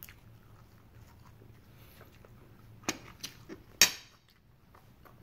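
A metal fork clicking a few times against a ceramic plate, the loudest click about four seconds in as the fork is set down on the plate.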